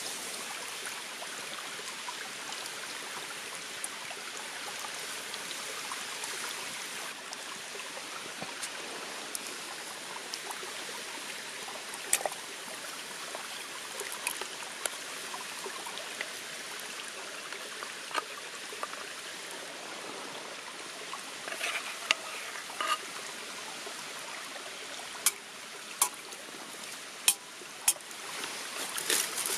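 A forest stream running steadily, with scattered sharp pops from a crackling campfire.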